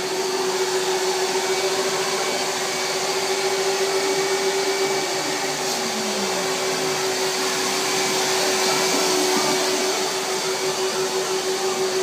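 Tub-style vacuum cleaner running steadily, its motor humming with a constant rush of air through the hose as it sucks at a car's interior carpet.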